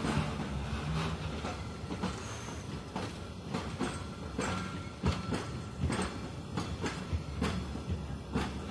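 A train hauled by an ET22 electric locomotive rolling past, its wheels clacking over rail joints in an uneven run of sharp knocks over a steady rumble.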